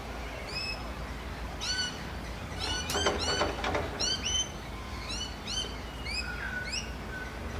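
Birds calling: many short, high chirps with quick pitch sweeps, repeated throughout, and a louder, harsher call about three seconds in, over a steady low rumble.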